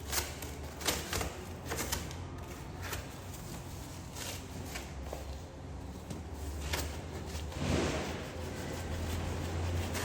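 Handling noise: scattered light clicks and knocks, with a short rustle about eight seconds in, over a steady low hum.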